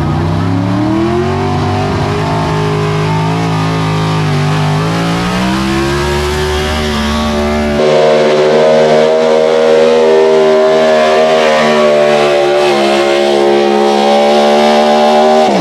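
Pro Stock 4x4 pulling truck's engine at high revs under full load, hauling the sled. Its pitch climbs over the first second or so, sags briefly around four seconds, then holds high and steady. About halfway through the note changes abruptly to a higher, steadier pitch, and it stops suddenly at the end.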